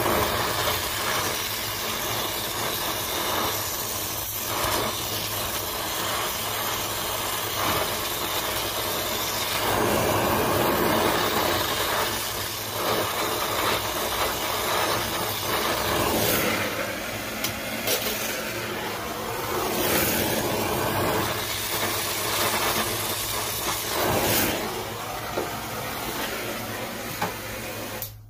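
Brazing torch flame hissing steadily as the copper capillary tube is brazed into a TX valve, with a few brief knocks in the second half. The hiss cuts off suddenly at the end as the torch is shut off.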